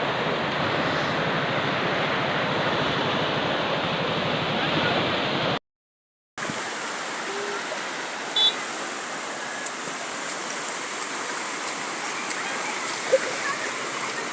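Floodwater running down from the hills, a steady rushing of water. It cuts off for under a second about halfway through and returns slightly quieter and brighter.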